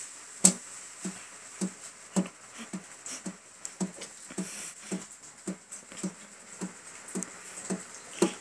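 A cat's paws tapping on the lid of a metal cookie tin, with a person's hands moving the paws: a steady beat of soft knocks, about two a second.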